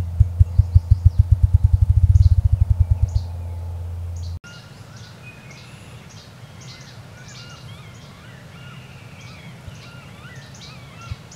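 Male ruffed grouse drumming: deep wing thumps against its chest, speeding up into a fast roll that stops about three seconds in, over a low hum. Then songbirds chirping and singing in the forest, with one more deep thump near the end.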